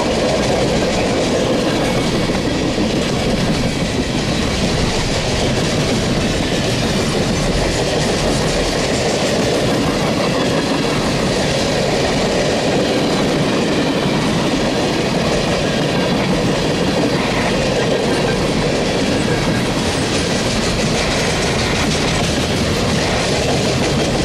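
Cars of a Norfolk Southern mixed freight train (refrigerator cars, tank cars, boxcars) rolling past, their steel wheels running on the rails with a steady, unbroken rumble.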